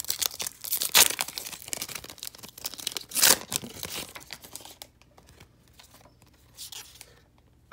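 Foil wrapper of a trading-card pack being torn open and crinkled, with two loud rips about one and three seconds in, then fainter rustling.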